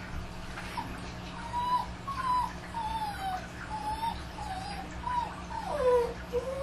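Dogs whining and crying in a run of short, high, gliding calls about two a second, the loudest one near the end sliding down in pitch, over a low steady hum.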